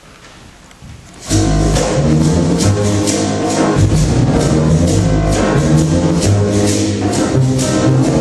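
Quiet hall sound, then about a second in an instrumental introduction starts suddenly: piano accompaniment with a quick, steady beat of sharp strikes.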